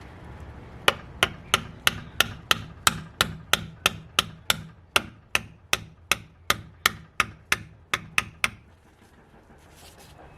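Hammer tapping a seal installer tool to drive a new rear axle oil seal into a Toyota Hilux axle hub: about two dozen even taps, roughly three a second, stopping about eight and a half seconds in.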